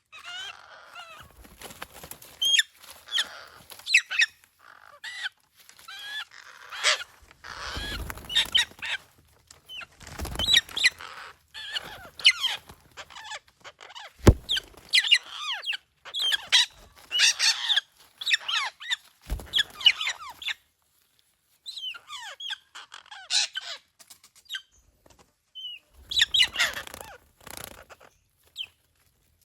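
Birds calling in quick, irregular bursts of short, sliding calls, with brief gaps between them. Two sharp knocks come about halfway through.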